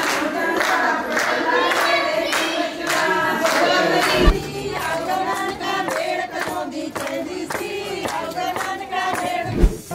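Women singing a folk song together, with clapping over a steady beat. A deep thud comes about four seconds in and again near the end.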